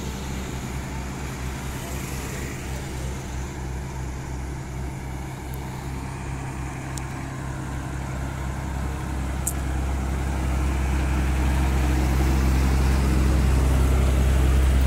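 Highway traffic: motorcycle and lorry engines passing, a steady low hum that grows louder over the last several seconds as a motorcycle approaches.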